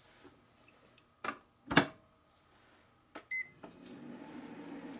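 Panasonic induction-heating rice cooker: the lid is shut with two clacks, the second the loudest, then a button is pressed with a click and a short high beep. The cooker then starts its cooking cycle with a steady low hum.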